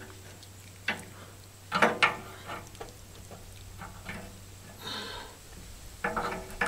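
A few scattered clicks and knocks from hands working around the backhoe's hydraulic hose ends and fittings, over a faint steady low hum.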